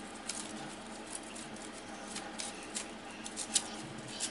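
Dry cattail stalks rustling and clicking against each other as they are handled and counted: scattered light clicks and rustles over a steady faint hiss.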